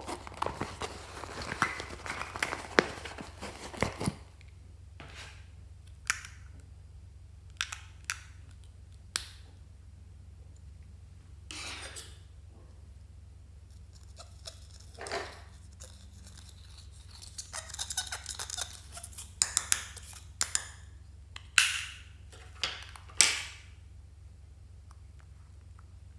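Close-up handling of a vinyl zippered pouch and a silver eyeshadow compact. Crackly rustling and clicks in the first four seconds, scattered single clicks, then the pressed eyeshadow scraped with a small spatula about two-thirds through, and a few sharp clicks near the end.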